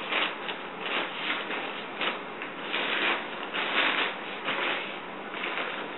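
Tent fabric rustling and crinkling in irregular swishes as the folded dome tent is pressed flat and rolled up for packing.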